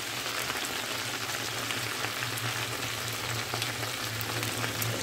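Chicken pieces sizzling and crackling as they fry in hot fat in a pan, with a steady low hum underneath.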